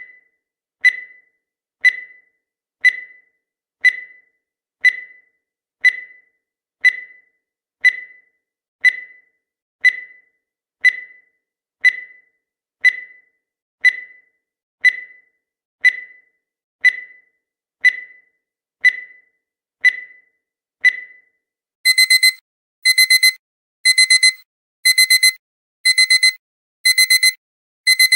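Countdown timer sound effect: a short high tick once a second, then about 21 seconds in it switches to a digital alarm beeping in rapid bursts, about one burst a second, as the countdown reaches zero.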